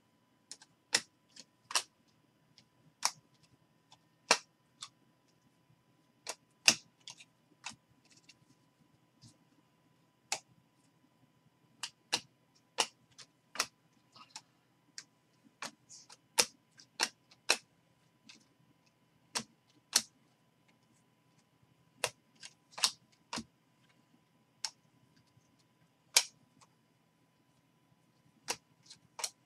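Sharp, irregular clicks, roughly one every second or two, as baseball trading cards are flicked one at a time through a stack in the hands.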